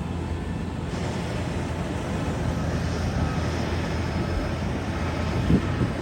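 Kubota DC-108X combine harvester's diesel engine and threshing machinery running steadily, with a brief knock about five and a half seconds in.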